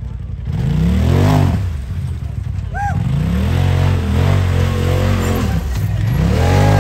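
Side-by-side UTV engine revving hard in repeated surges, its pitch climbing, falling back, holding, then climbing again near the end. A short high-pitched sound cuts in about three seconds in.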